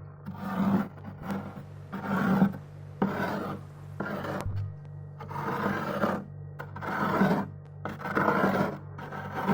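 Edge of a bowl scraping frost and ice off a freezer's walls in repeated rasping strokes, a little more than one a second.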